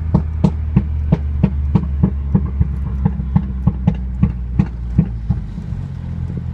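Mercedes C200's tuned 1.5-litre turbocharged four-cylinder M264 engine and exhaust running with a steady low drone, popping and crackling about three times a second from its crackle-and-pop tune. The pops stop near the end while the drone goes on.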